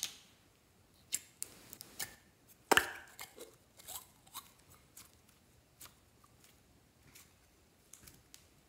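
Clear slime being pulled out of a plastic tub into a glass bowl: scattered sticky clicks and pops with plastic handling noise, the loudest a little under three seconds in.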